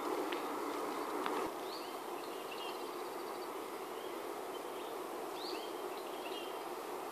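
Steady outdoor background hum on a golf course, a little louder in the first second and a half, with faint short bird chirps and a quick trill about two seconds in and again about five and a half seconds in.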